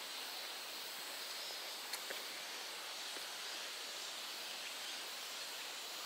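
Steady high-pitched hum of insects in summer woodland, with a couple of faint clicks about two seconds in.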